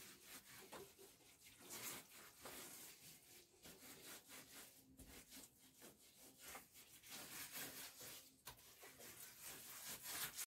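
Faint, irregular rubbing strokes of a hand smearing wet white clay over a mud chulha (clay cooking stove), plastering its surface.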